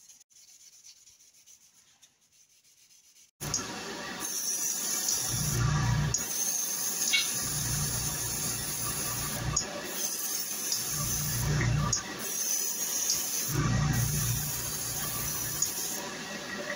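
Faint room tone, then about three and a half seconds in a loud steady rush of a spray booth's extractor fan starts. Over it a gravity-feed airbrush hisses in several bursts of a few seconds each, with short breaks, as it sprays lacquer paint.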